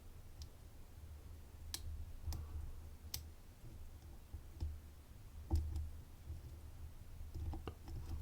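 Faint, irregular metallic clicks of a dimple lock pick probing and lifting pins in a 10-pin Domus euro cylinder held under tension.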